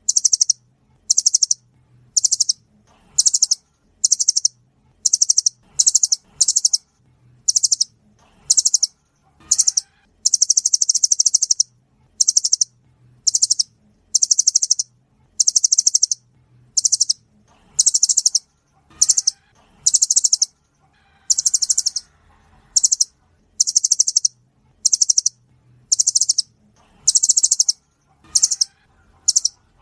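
Nuthatch (rambatan) song: loud, high-pitched bursts of very rapid repeated notes, each lasting under a second to about two seconds, coming roughly once a second.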